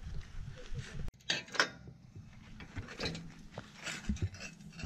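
Handling noise around a bicycle: scattered clicks and knocks, the sharpest about a second and a half in.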